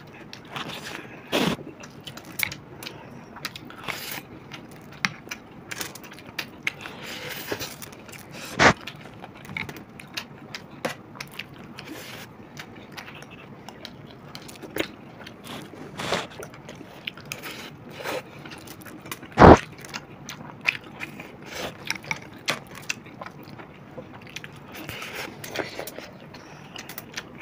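Close-miked eating of chicken biryani: chewing, rice being scooped, and a spoon scraping the plate, in a steady stream of small clicks and scrapes. Two louder knocks stand out, one about nine seconds in and one about nineteen seconds in.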